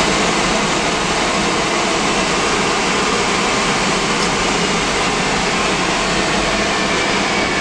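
Spencer Orgoblo 10 HP theatre-organ blower running steadily: its electric motor and fan give a loud, even rush of air with a faint high whine on top.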